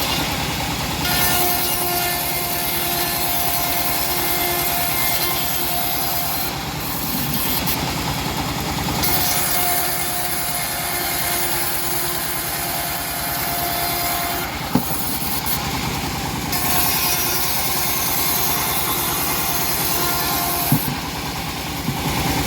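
Homemade bandsaw sawmill running steadily and cutting through a teak log, with a thin whining tone from the cut that comes and goes in three stretches of about five seconds. Two sharp knocks sound in the second half.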